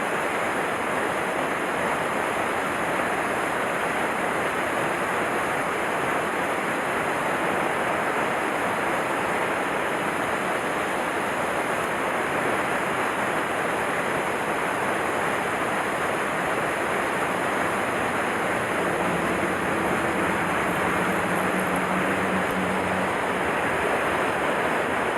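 Steady rush of a mountain stream's flowing water, even and unbroken.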